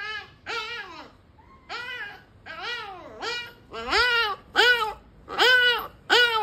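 Kitten meowing over and over, a string of short mews that each rise and fall in pitch, coming louder in the second half. The owner puts the constant crying down to the kitten being in pain.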